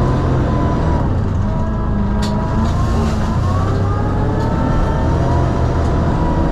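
Sherp amphibious ATV's diesel engine and drivetrain running under way: a steady, loud low rumble with a thin whine that drifts slowly up and down in pitch.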